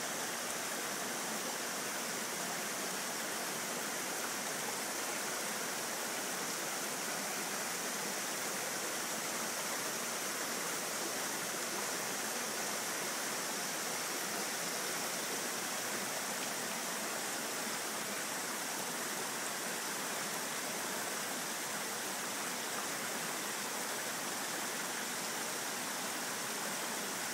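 Steady rushing of a nearby stream or small cascade, an even water noise that stays constant throughout.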